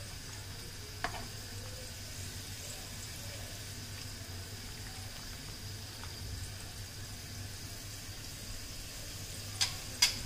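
Water boiling in a steel pan of noodles, a steady bubbling hiss. A sharp click about a second in and two louder clicks near the end.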